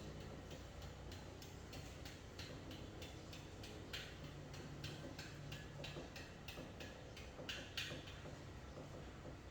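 Light, quick clicking, about three clicks a second and slightly uneven, over a faint low hum.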